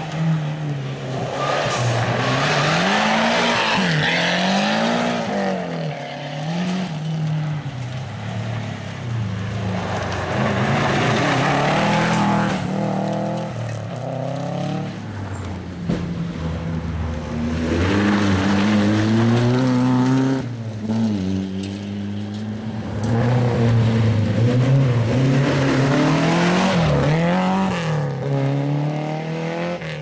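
Rally cars on a gravel stage, engines revving hard up and down through the gears as they come through, in several loud passes. The tyres scrabble and throw gravel.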